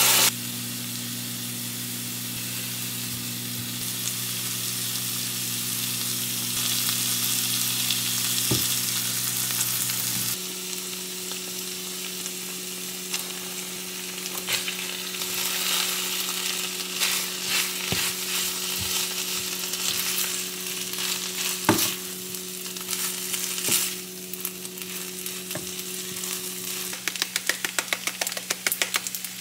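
Kkakdugi (radish kimchi) fried rice sizzling in a pan while a wooden spatula stirs and scrapes through it, with scattered clicks of the spatula against the pan and a quick run of them near the end. A steady low hum runs underneath.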